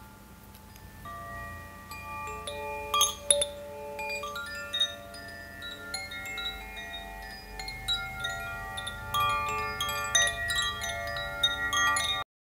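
Wind chimes ringing: many overlapping metal tones struck at random, growing denser and louder from about six seconds in, then cutting off abruptly just before the end.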